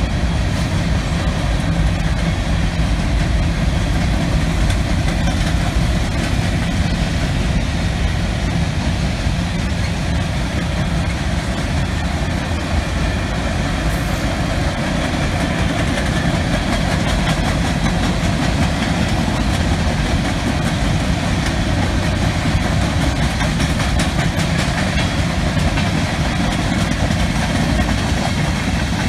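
Covered hopper and tank cars of a manifest freight train rolling past, a steady noise of steel wheels on the rails.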